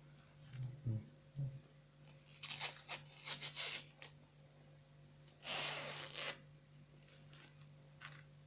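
Adhesive tape being peeled off, ripping in a few short stretches: several quick rips about two to four seconds in, and a longer one around five and a half to six seconds. A faint steady low hum runs underneath.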